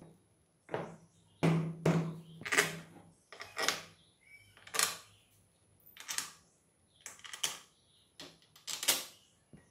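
Metal clinks and knocks of parts being handled as the side cover and its bolts are fitted to a Bajaj three-wheeler engine's crankcase: about a dozen separate sharp taps, roughly one a second, the loudest in the first few seconds and near the end.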